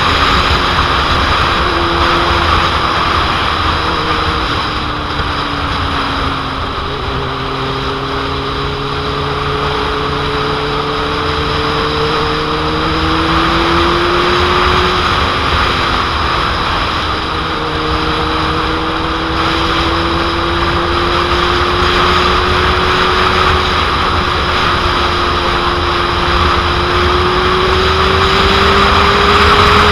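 Heavy wind noise buffeting the microphone on a moving motorcycle, over the 2001 Suzuki GSX-R750's inline-four engine droning underneath. The engine's pitch slowly rises and falls several times as the bike speeds up and eases off.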